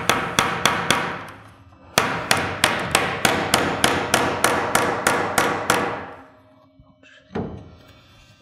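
Hammer driving nails to tack a wooden rafter to the ridge board: a short run of sharp strikes, a pause of about a second, then a longer run of about fourteen strikes at about four a second. One single knock comes near the end.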